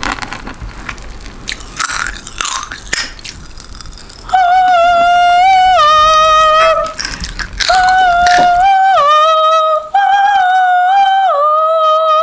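Soft clicks and rustles for about four seconds, then a child's voice singing a wordless tune in loud, high held notes that step up and down, with short breaks between phrases.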